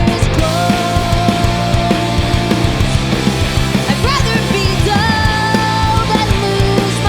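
Punk/indie rock band playing a song live, the drums keeping a steady beat under long held melody notes that bend at their ends.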